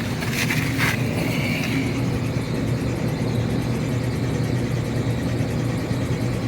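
York 3-ton rooftop air-conditioning unit running with a steady hum and fan noise, with a few brief clicks about half a second in.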